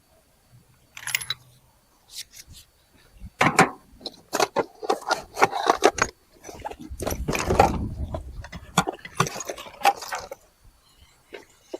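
Hand tools and metal parts clinking and clattering as they are handled, a rapid run of sharp knocks and clicks, with a dull rumbling thump about seven seconds in.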